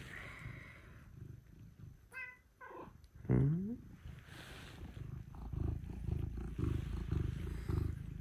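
A cat meows twice close to the microphone, a short high meow and then a louder one falling in pitch. From about five seconds in it purrs in a steady pulsing rhythm.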